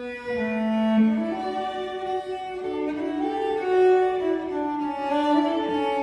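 Fiddle and cello playing a tune together, with bowed, held notes that change every second or so.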